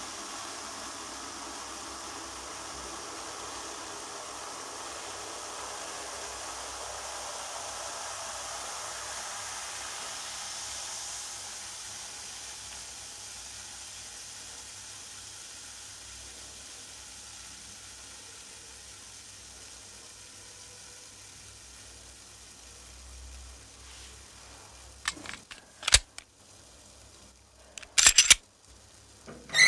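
Carbonated cola fizzing in a toilet bowl: a steady soft hiss of foam bubbles popping, which slowly fades as the foam settles. A few sharp clicks and knocks come near the end.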